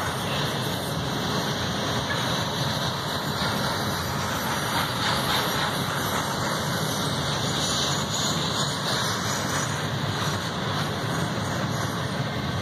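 Double-stack intermodal well cars of a Norfolk Southern freight train rolling past close by: a steady rolling noise of steel wheels on rail.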